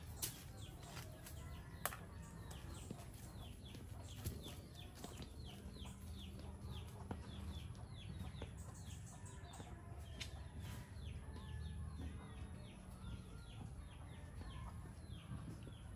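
Chickens: a long run of short, high, falling chirps repeating several times a second, with quieter clucking underneath. A sharp tap about two seconds in.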